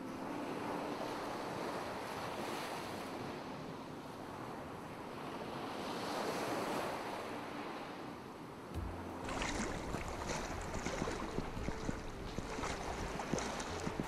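Small sea waves washing up on a sandy shore, swelling and fading. About nine seconds in, close splashing and sloshing of shallow water as someone wades in, with a low rumble of wind on the microphone.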